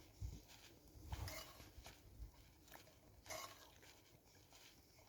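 Near silence, with a few faint, soft clicks and low thumps here and there.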